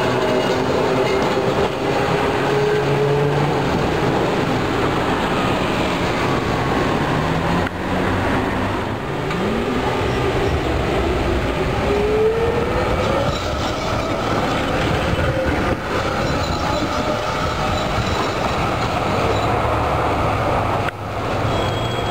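Electric trams running on street rails: a steady rumble of steel wheels on the track, with a motor whine that rises in pitch over several seconds near the middle as a tram gets under way.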